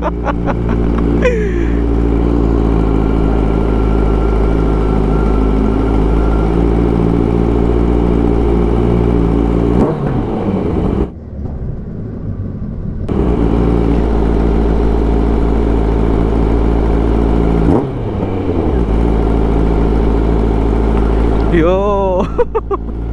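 Kawasaki Ninja 1000's inline-four engine running under way at a fairly steady pitch. It drops off for about two seconds near the middle, and its pitch shifts briefly a few times.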